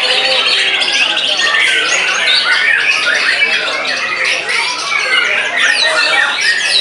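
White-rumped shamas (murai batu) singing over one another in a dense chorus of whistles, trills and harsh notes, with a rapid trill in the first couple of seconds.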